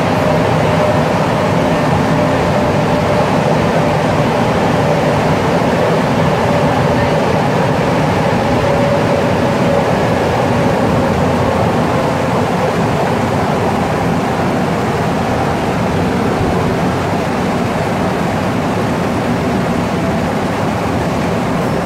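Cabin noise inside a Montreal Métro Azur (MPM-10) rubber-tyred train running through the tunnel: a steady loud rumble with a faint motor whine that dips slightly in pitch partway through. The noise eases a little in the last few seconds.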